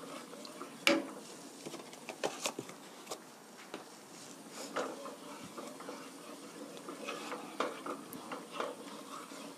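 Wooden spoon stirring a milk sauce in a nonstick pan, scraping the bottom and knocking against the pan in irregular clacks, the loudest about a second in. The stirring pauses for a moment midway while the spoon rests in the pan, then starts again.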